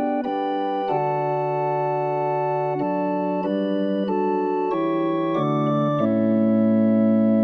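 Organ playing a hymn in sustained block chords that change about once a second, settling on a long held chord near the end.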